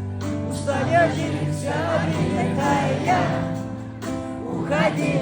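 Russian-language pop song playing: a voice singing over sustained bass and chords.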